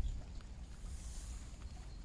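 Quiet outdoor ambience in light rain: a low rumble on the microphone with faint scattered ticks, and a soft hiss about a second in.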